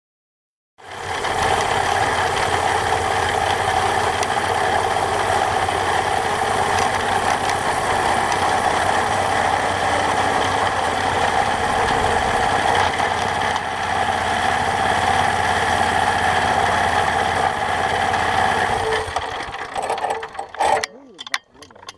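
Engine of a vehicle travelling on a railroad track, running steadily, then dying down about nineteen seconds in as the vehicle comes to a stop.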